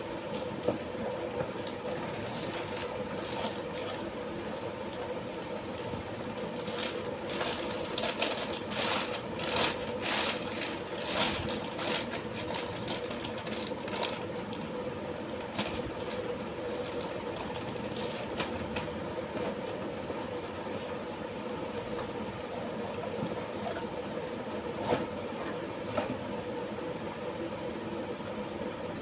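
Steady mechanical hum, with a run of sharp clicks and rustles from about a quarter to halfway through, and a couple more near the end.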